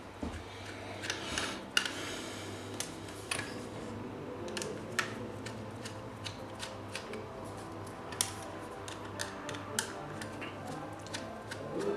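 Small screws being backed out of a 2.5-inch laptop hard drive's metal mounting bracket with a screwdriver: irregular light metallic clicks and ticks, with a brief scrape of the bracket being handled near the start.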